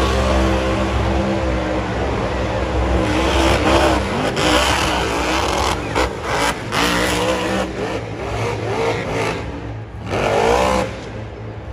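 Monster truck's supercharged engine revving hard and unevenly while the truck pops a wheelie and rolls over, with several sharp bangs around the middle. One last rising rev comes near the end, then the sound drops off.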